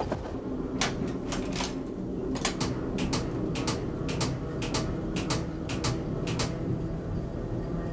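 Wheels of a Berlin S-Bahn class 476 electric train knocking over rail joints, heard inside the driver's cab. The knocks come mostly in quick pairs over a steady low running hum and stop about six and a half seconds in.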